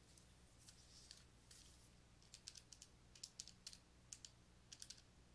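Near silence: room tone with a low steady hum and faint, scattered small clicks and taps, most of them in the second half.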